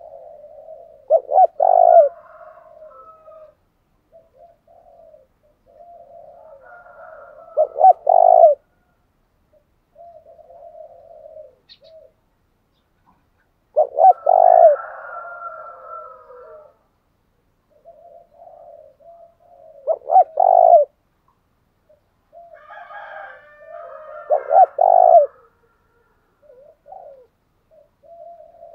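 Spotted dove cooing in repeated phrases: each starts with a soft murmur and ends in two or three loud coos, about every six seconds, five times.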